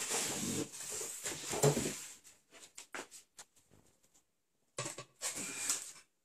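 Faint rustling, scraping and light knocks of cardboard and foam packaging being handled as a boxed iMac in its foam end caps is lifted out. The sound drops out completely for about a second in the middle.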